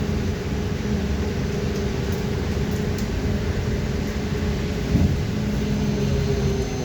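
Interior of a BKM 321 trolleybus under way: the electric traction drive hums steadily over road and body rumble, with a single knock about five seconds in.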